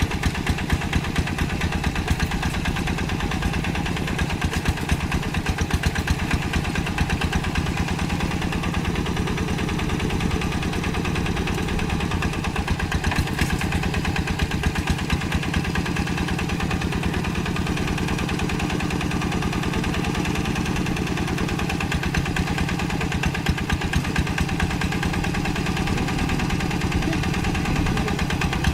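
Single-cylinder diesel engine of a two-wheel hand tractor running steadily, a fast, even chugging of firing pulses.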